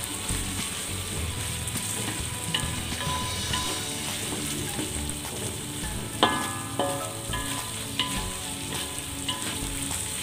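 Shallots, lemongrass, tomato and curry leaves sizzling in hot oil in a metal wok, stirred with a wooden spatula, with a few sharper knocks as the spatula strikes the pan.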